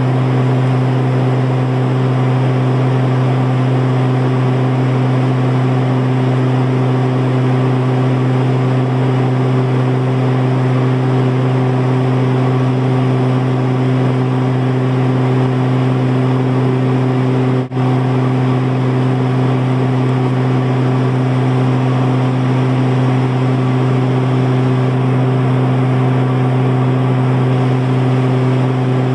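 Cabin drone of a Cessna Conquest twin turboprop in cruise: a loud, steady engine and propeller hum with constant pitch, broken by a momentary dropout about two-thirds of the way through.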